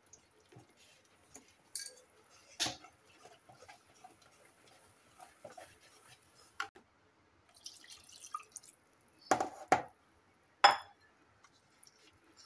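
A wire whisk stirring thick, wet gram-flour batter in a stainless steel bowl: soft wet squelching and scattered light clicks of the whisk against the steel. There are a few louder knocks, one about three seconds in and three close together near the end.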